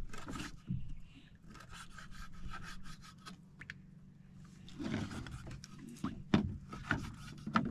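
Rubbing and scraping of fishing gear against the wooden hull of an outrigger boat as a handline is worked off its spool, with scattered light knocks over a faint steady low hum.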